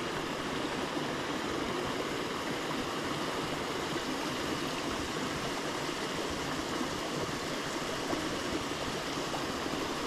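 Small mountain stream running over rocks, with water spilling from a low concrete outlet into a pool: a steady, unbroken rushing of water.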